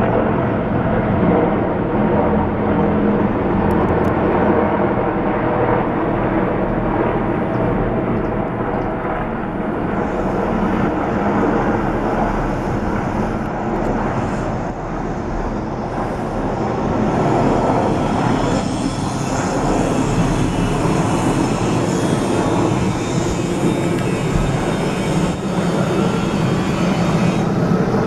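A formation of Mi-28 attack helicopters flying past, with a loud, steady rumble of rotors and turbine engines.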